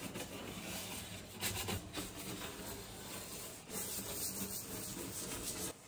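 Stiff nylon dish brush scrubbing a glass-ceramic cooktop through a white cleanser: a steady scratchy rubbing in quick strokes that cuts off abruptly near the end.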